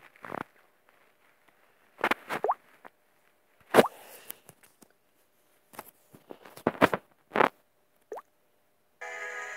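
About ten sharp clicks and taps, spaced irregularly with silence between them. About nine seconds in, a cartoon soundtrack with music starts.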